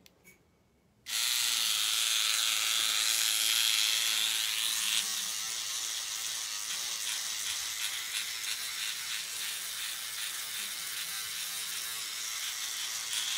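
Electric microneedling pen switched on about a second in and buzzing steadily as its needle cartridge punctures facial skin. The motor buzz is high-pitched and even, dropping a little about halfway through.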